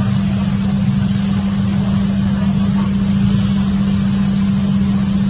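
A loud, steady droning hum with one constant low tone and a hiss over it, unchanging throughout.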